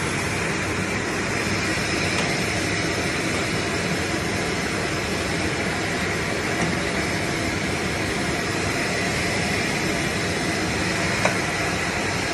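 ZJ-2500 container sterilizing machine running with a steady mechanical noise and a few faint steady tones, with one short click near the end.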